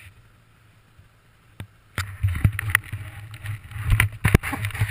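A snowmobile engine running steadily as it tows a skier, with skis sliding and scraping over snow. It starts about two seconds in and is dotted with sharp knocks.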